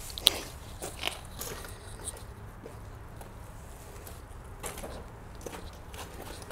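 Footsteps in sneakers crunching over gravel and broken rubble, uneven steps with a sharp crunch just after the start.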